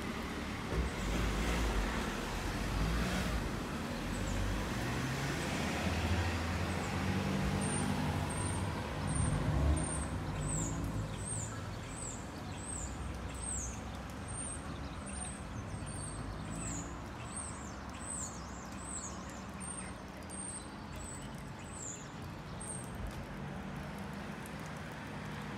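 Town-street traffic, with cars going by on a wet road over a steady low rumble that is loudest in the first ten seconds. From about eight seconds in, short high chirps that fall in pitch repeat over and over, stopping shortly before the end.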